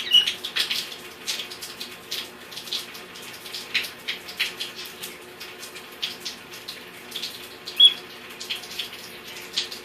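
Amazon parrot giving two short, high chirps, one right at the start and a louder one near the end, over a steady patter of light clicks and ticks.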